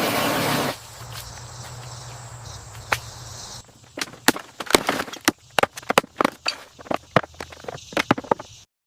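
A short loud rush of noise, then a steady hum, then an irregular run of sharp knocks and clicks that stops abruptly near the end.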